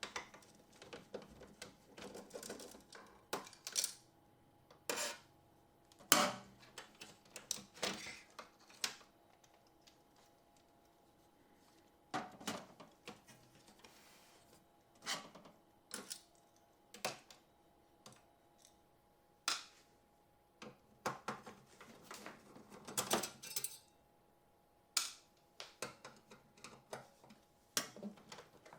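Irregular clicks and light clinks of small screws and parts being handled and sorted out of bags of loose parts, with a quiet pause of a few seconds about a third of the way in.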